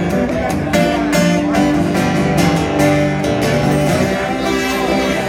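Acoustic guitar played bottleneck slide style, an instrumental blues passage of picked notes ringing over one another.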